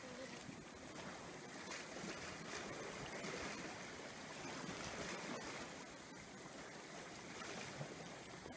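Sea waves washing against a breakwater: a steady rushing that swells and eases every few seconds.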